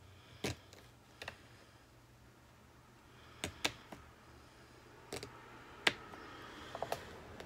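Scattered sharp clicks and taps from hands handling craft materials, about seven in all at uneven intervals, with a faint hum behind.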